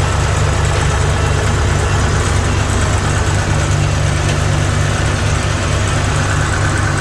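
Kubota DC70G combine harvester's diesel engine running steadily at a constant speed, a loud, even low rumble.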